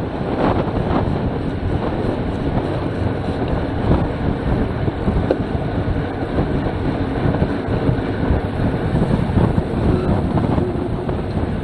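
Wind buffeting the microphone of a bicycle-mounted action camera at about 25 to 29 mph: a loud, steady rushing with a heavy low rumble.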